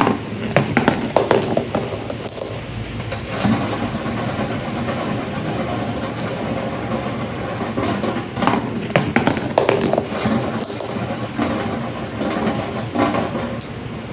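Glass marbles rolling down a marble run, a continuous rolling rumble with frequent clicks and clacks as they strike the track and one another.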